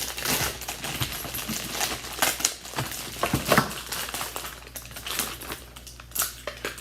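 Plastic packaging crinkling, with irregular clicks and taps, as almond bark is unwrapped and handled for melting.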